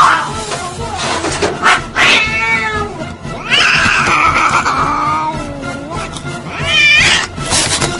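A cat yowling in drawn-out, wavering meows: a short call about two seconds in, a long one from about three and a half to nearly six seconds, and a brief one near the end.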